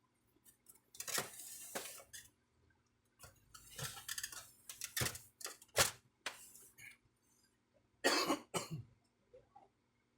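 Plastic parts of a Brother ink-tank printer being handled during disassembly: three bursts of clicks, knocks and scrapes with short quiet gaps between them.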